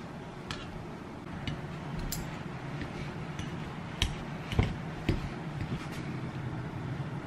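Scattered clicks and knocks of metal kitchen utensils: a wire egg slicer, and a metal masher working chopped boiled egg in a glass bowl. The knocks are loudest about four to five seconds in, over a steady low hum.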